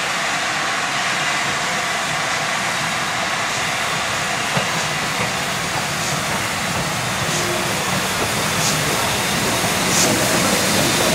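BR Standard Class 4 tank steam locomotive running slowly past with its train of carriages: a steady hiss of steam and rolling noise, with light regular clicks about every second and a bit. It grows louder near the end as the engine comes alongside.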